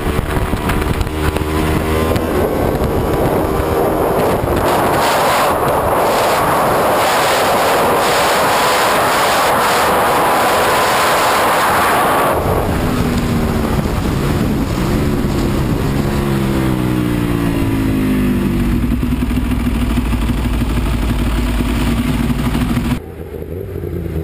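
Ducati 1198R superbike's L-twin engine at speed, heard from onboard, with heavy wind rush over the engine for the first half. About halfway through the rush cuts off suddenly, and the engine note falls and rises in short steps as the bike slows through the gears, then runs on steadily. Near the end it gives way abruptly to a quieter engine.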